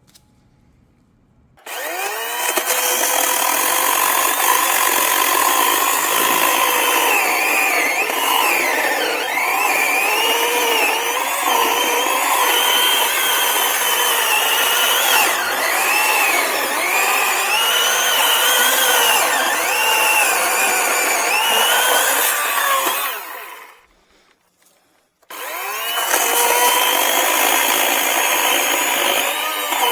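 Greenworks 80-volt battery chainsaw with a new carbide chain cutting into wood: the electric motor's whine starts about two seconds in and keeps dipping and recovering in pitch as the chain bites. It stops for a second or so near the end, then starts cutting again.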